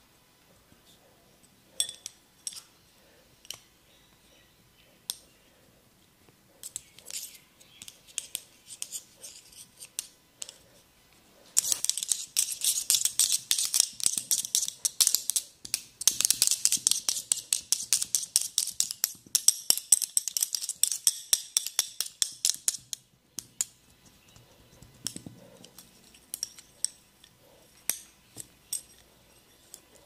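Sharp clicks during a barber's massage. Single clicks come scattered at first, then a rapid run of clicks, several a second, lasts about eleven seconds from around the middle, then single clicks again.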